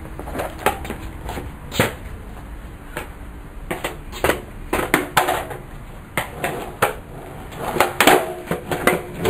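Skateboard on concrete: a string of sharp knocks and clacks from the deck and wheels being handled, set down, popped and landed. The loudest cluster comes about eight seconds in as a pop shove-it lands.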